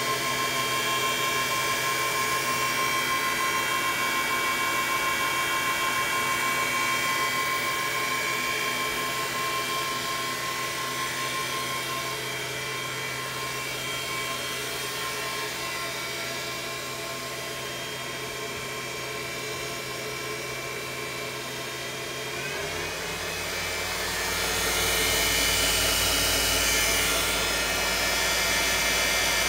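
The spindle of a CNC-converted Grizzly G0704 mill running at about 5,000 RPM, driven through belt pulleys by a Leeson IEC metric motor on a variable-frequency drive. It makes a steady whine made of several held tones. About three-quarters of the way through, the sound shifts and gets louder, with a brief rising tone.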